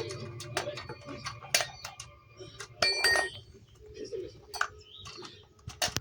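Scattered metallic clinks and knocks, a few with a brief ring, as tools and parts are handled while a chainsaw is being assembled.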